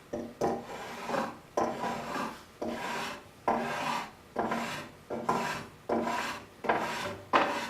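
Hand spokeshave cutting shavings off a wooden chair back in quick repeated strokes, about two a second, each starting sharply and fading: the top of the back being faired into the crest rail.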